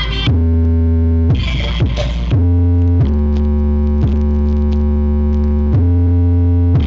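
Electronic music played loud through a large outdoor sound system: long, held deep synth bass notes with a heavy low end, stepping to a new pitch about every second.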